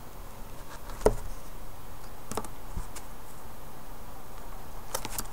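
A few light clicks as a flat clay blade is pressed down through a sheet of polymer clay onto the work surface to trim off the excess, over a steady background hiss.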